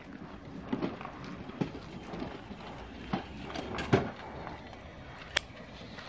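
Footsteps at an even walking pace, about one step every 0.8 seconds, each a short knock. Partway through, a flip-top petrol lighter is opened and lit, with a sharp click a little after it.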